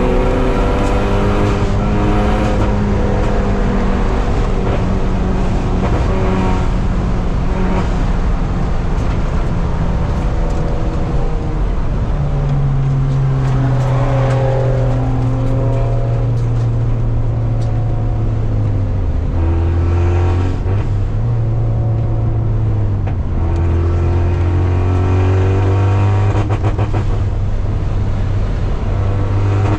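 Car engine running hard on a race track, its pitch rising, falling and stepping as it accelerates, lifts and shifts, over steady road and wind noise. The engine is suffering from misfires.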